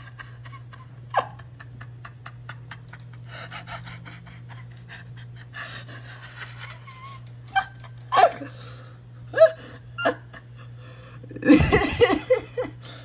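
Wheezing, gasping breaths: a few short gasps spaced apart, then a quick run of several together near the end, over a steady low hum.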